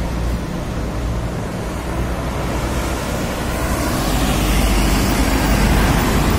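Heavy trucks driving past at close range: diesel engine rumble and tyre noise from an Isuzu FTR rigid truck and then a Volvo FM440 tractor unit hauling a container trailer. The noise swells steadily, loudest near the end as the Volvo's 13-litre straight-six passes close by.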